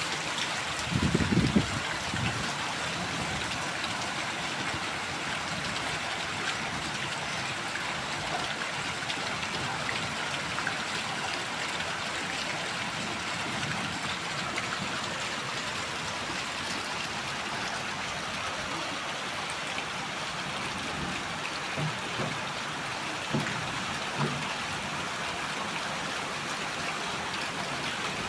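Heavy rain falling steadily, an even dense hiss. A short low thump about a second in.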